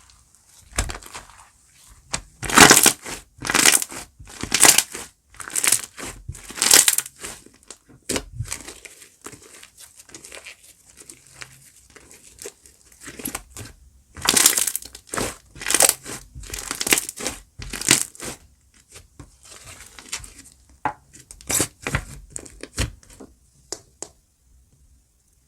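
Slime being squeezed and pressed by hand, giving repeated sharp crackling crunches in clusters, stopping just before the end.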